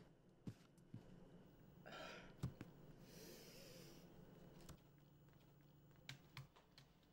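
Near silence with a few faint, scattered taps of high-heeled pumps shifting on a vinyl floor, and faint breathing about two seconds in.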